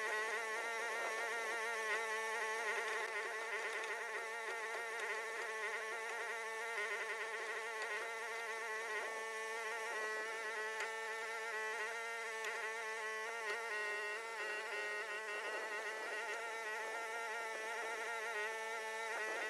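Huayee HY14C mini excavator running steadily under work, a constant engine drone with a hydraulic whine whose pitch wavers slightly as the controls are worked.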